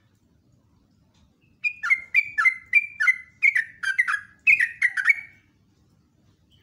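Yellow-vented bulbul singing: about a second and a half in, a quick run of about a dozen short chirping notes, each dropping in pitch, lasting about four seconds.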